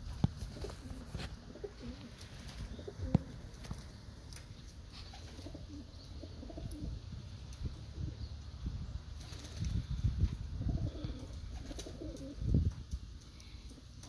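Flock of racing pigeons cooing on a loft roof, with a few sharp taps and some wing flapping.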